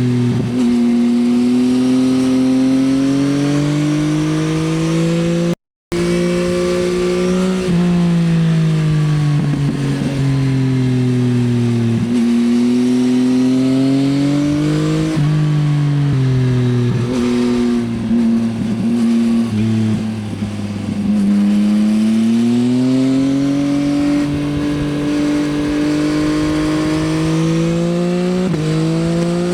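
2024 Yamaha XSR900's inline three-cylinder engine through an Akrapovič Racing Line exhaust, ridden hard: the engine note climbs under acceleration, drops sharply at gear changes and falls away on roll-off, several times over, with some crackling as the revs fall. The sound cuts out completely for a moment about six seconds in.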